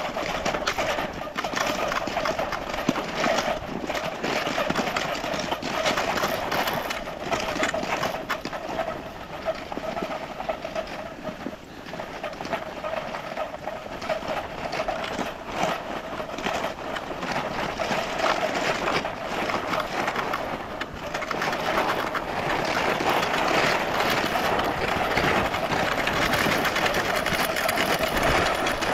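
Cross-country skis gliding and scraping over a thin layer of fresh snow while being towed at speed: a steady rushing hiss with frequent light, irregular knocks.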